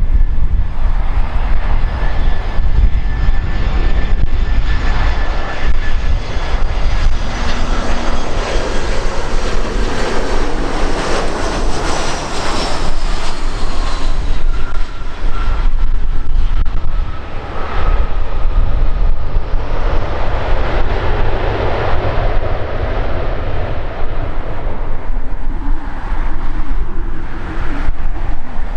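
Airbus A320-214's CFM56 jet engines on landing: a loud jet roar with a heavy low rumble that swells to its peak as the airliner passes close by, with thin fan-whine tones that slowly fall in pitch. The roar carries on, a little lower, as the jet rolls down the runway after touchdown.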